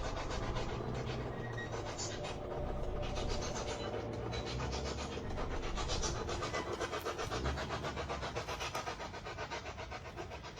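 Ghost-hunting spirit box sweeping through radio stations: a fast, even chop of static and snippets of broadcast, slowly fading towards the end.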